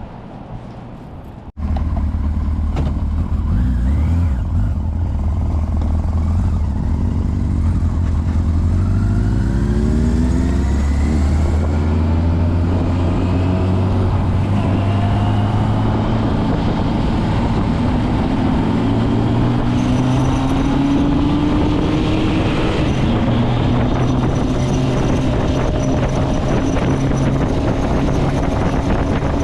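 Motorcycle engine running while riding, its pitch climbing in several rising glides as it accelerates, under a steady rush of wind. The sound cuts in suddenly about a second and a half in.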